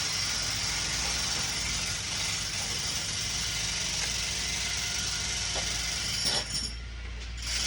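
Steady low rumble of construction machinery running, with a high hiss over it that cuts off about six and a half seconds in.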